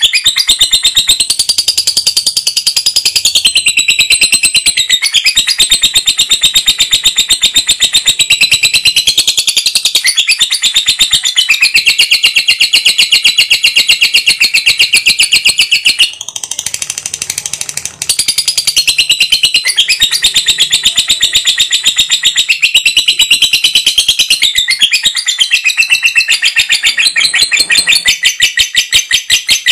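Lovebird's long chattering trill (ngekek panjang): sharp, high chirps repeated very rapidly in an unbroken run, softening briefly about sixteen seconds in before resuming.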